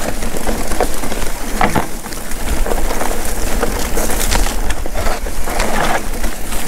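Mountain bike ridden down a rough dirt singletrack: tyres crunching over stones and dirt, the bike rattling and knocking over bumps, with wind rumbling on the camera's microphone.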